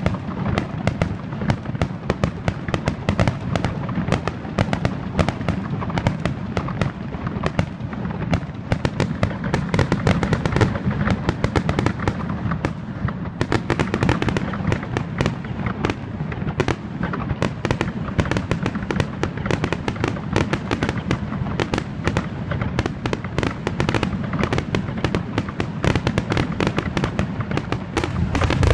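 Aerial fireworks display: a dense, unbroken run of shell bursts and crackling, many reports a second, over a continuous low rumble of booms.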